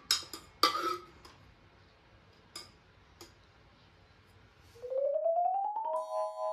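A steel ladle clinks sharply against a small metal pot a couple of times, then taps it faintly now and then. About five seconds in, a quick run of rising mallet-like notes climbs into a ringing chime chord.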